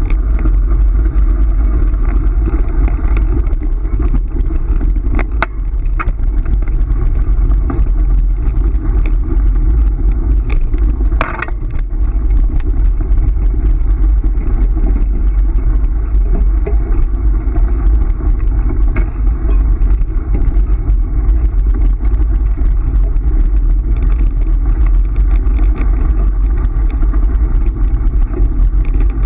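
Steady loud rumble and rattle of a dog scooter's wheels rolling over a gravel road, with a few sharp clicks.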